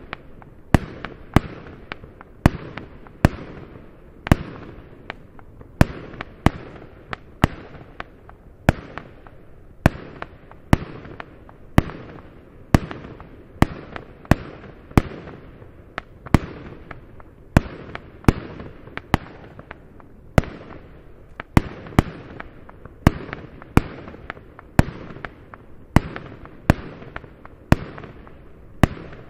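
Firework battery firing shot after shot, about one and a half sharp bangs a second at uneven intervals, each trailing off in a short rush of noise.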